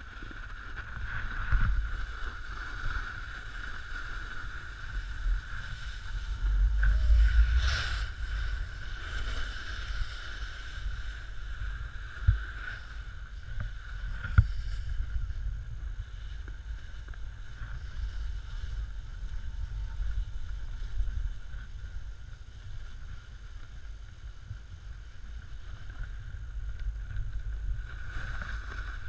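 Snowboard sliding down a snow slope, its base and edges scraping and rumbling over the snow, with wind noise on the pole-mounted GoPro Hero3 Black's microphone. The rumble swells louder a couple of times, and two sharp knocks come about halfway through.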